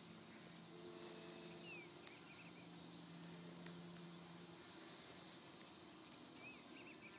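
Near silence: faint outdoor ambience with a low steady hum, a couple of faint clicks and faint high chirps.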